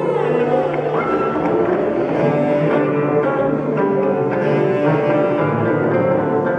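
Live ensemble music of sustained, layered held tones, with a bowed cello prominent among them and a sliding pitch near the start.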